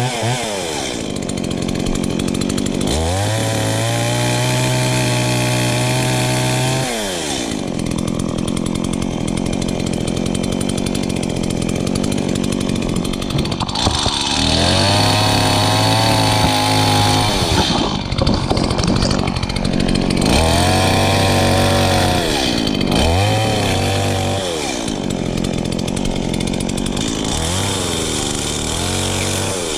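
Chainsaw running, revved up to full throttle and held for a few seconds, then let back down to idle, several times over.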